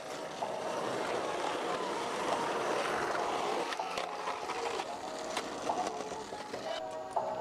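Skateboard wheels rolling on rough pavement and the board grinding along a curb edge: a steady rushing noise with a few light clacks.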